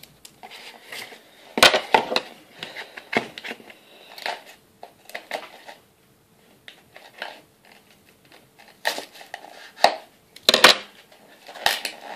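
Trading card pack being handled and worked open: the wrapper crinkles and rustles in irregular bursts, with sharp clicks and taps from handling.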